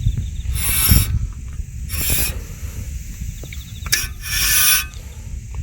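Brake rotor of a jacked-up Subaru Sambar turning, scraping harshly three times against a small stone trapped between the rotor and the brake backing plate.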